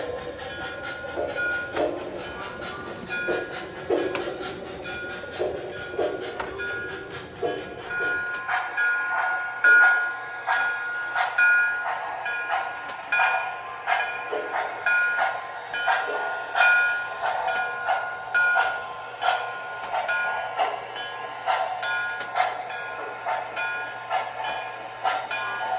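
MTH O-gauge USRA steam switcher's onboard sound system playing steam chuffs in a steady rhythm, a little over one chuff a second.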